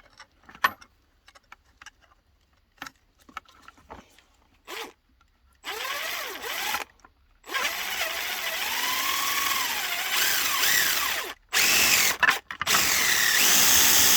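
Small handling clicks and taps, then an electric drill runs in four bursts, its speed rising and falling with the trigger, as it enlarges an off-centre hole. The last burst is the loudest.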